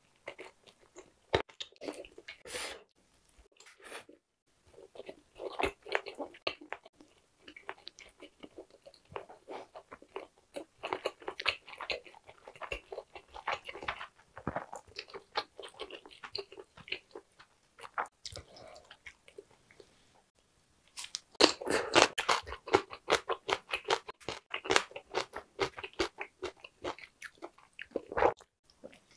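Close-miked biting and chewing of a whole Korean blood sausage (sundae) in spicy stir-fry sauce: a steady run of mouth clicks and chews. Brief pauses come about four seconds in and again around twenty seconds in, followed by the thickest run of bites and chews.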